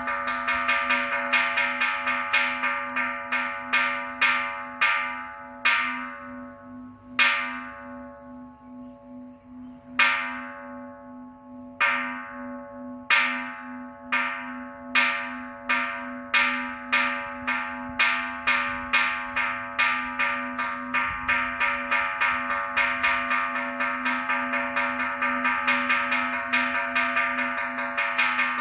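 Small hanging bronze Buddhist temple bell struck with a wooden mallet, rung to call the service. The strikes come quickly at first, slow to single widely spaced blows, then gradually speed up again into a rapid run, the bell ringing on steadily between strokes.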